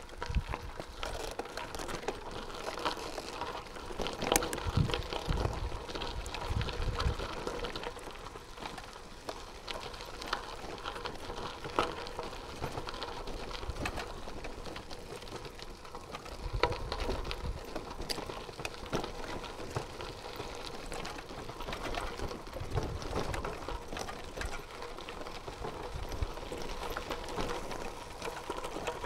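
Bicycle tyres rolling over a gravel track: a continuous crackle of small stones and clicks, with low rumbles every so often.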